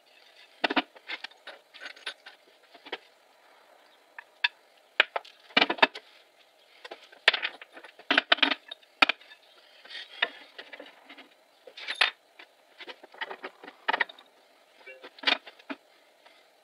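Irregular knocks and clinks as the wooden parts of a flat-pack pine workbench and its small metal fittings are handled and set down. The sharp taps come in scattered clusters, with the louder ones just under a second in, around five and a half seconds, around eight seconds and around twelve seconds.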